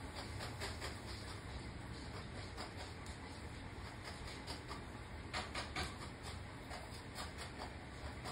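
Irregular light tapping of raindrops, with a few louder ticks a little over five seconds in, over a steady low hum.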